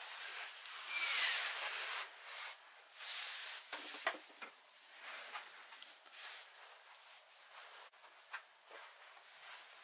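Faint rustling and handling noise with scattered light clicks and knocks, loudest in the first two seconds; the motorcycle's engine is not running.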